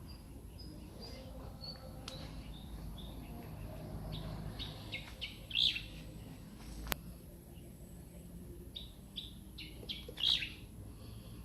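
Small birds chirping in quick runs of short, high notes, loudest about halfway through and again near the end. A single sharp click sounds about seven seconds in, over a low steady rumble.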